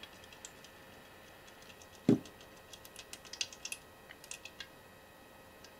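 Faint clicks and taps of small metal parts being handled during a sextant teardown, most of them bunched in the middle. A single soft thump, the loudest sound, about two seconds in.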